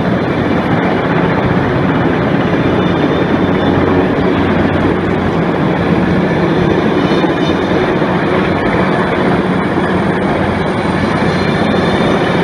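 Heavy-lift helicopter hovering low overhead with a long line slung beneath it, its rotor and engine making a loud, steady noise that echoes between tall buildings.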